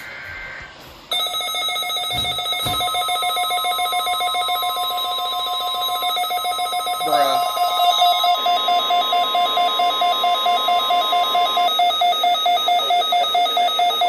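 Midland weather radios going off in a NOAA Weather Radio tone alarm test. A loud, rapidly pulsing electronic alarm starts about a second in, and a second radio's alarm joins with a quick pitch sweep about halfway through. Under them a steady warning tone of about 1 kHz, the broadcast's 1050 Hz alert tone, sounds for about nine seconds.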